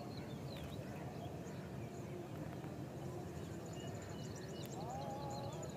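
Outdoor ambience: a steady low background rumble with small birds chirping faintly throughout, a high trill in the second half, and a short wavering call about five seconds in.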